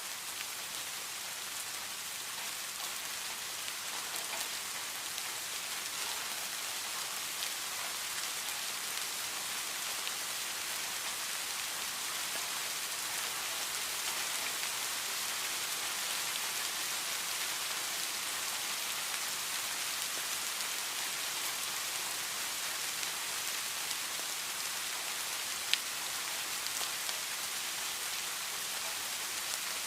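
Heavy rain falling steadily as an even hiss that swells slightly in the first dozen seconds, with one sharp louder drop or tick near the end.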